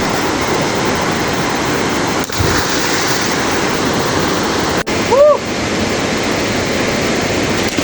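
Rushing water of the Likhu Khola mountain river, a loud steady roar. About five seconds in, a brief pitched cry rises and falls over it.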